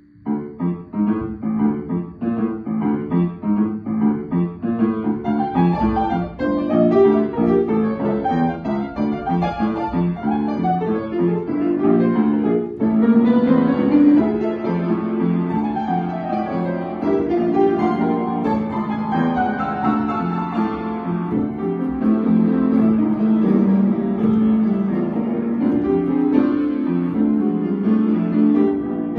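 Upright piano played solo: a continuous stream of notes and chords, starting right after a brief hush.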